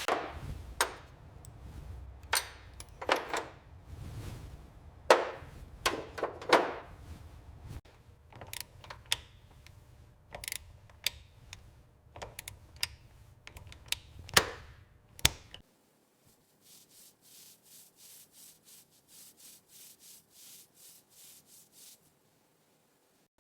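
Rubbing strokes on a surface, uneven and sharp at first. About sixteen seconds in they turn into a faint, even scrubbing rhythm of about three strokes a second, which stops suddenly near the end.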